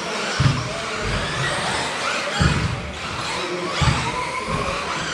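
1/10 scale electric 4WD off-road RC race cars running on the track, their brushless motors whining up and down in pitch as they accelerate and brake. Several heavy thumps of the cars hitting the track come through over the whine.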